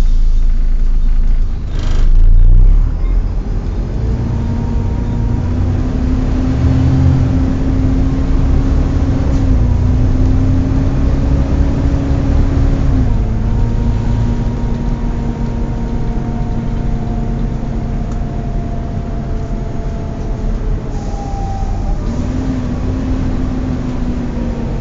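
Volvo B7TL double-decker bus heard from inside the passenger saloon while under way: the engine and driveline run with a low rumble and a steady whine that steps up and down in pitch a few times. There is a loud thump about two seconds in.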